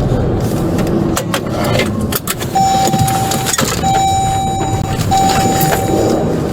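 Vehicle running under rustling and knocking handling noise, with three long steady electronic beeps of the same pitch in a row in the second half.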